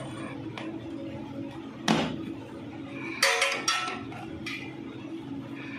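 Steel tubular box spanner and tommy bar clinking as the spanner is fitted onto a motorcycle's rear axle nut: one sharp knock about two seconds in, then a quick run of ringing metal clinks about a second later, over a steady low hum.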